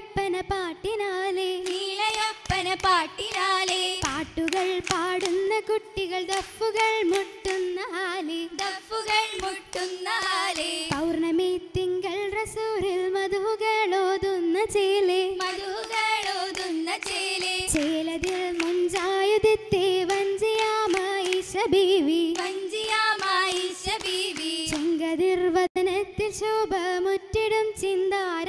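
Girls' voices singing an oppana (Mappila) song together, with sharp hand claps falling throughout.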